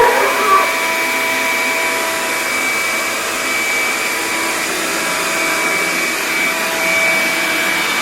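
Big shop vacuum running steadily with a constant high whine over its rushing air noise. A dog gives a brief yelp right at the start.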